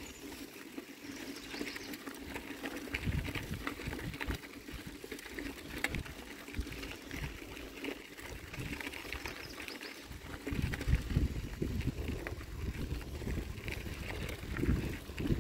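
Bicycle tyres rolling over a dirt and gravel trail, with steady crunching and the bike rattling over small bumps. Low gusts of wind buffet the microphone a few seconds in and again past the middle.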